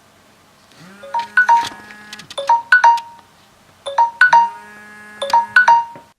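Phone ringtone: short phrases of bright, chiming, marimba-like notes, repeated several times, with a low steady hum under each pair of phrases.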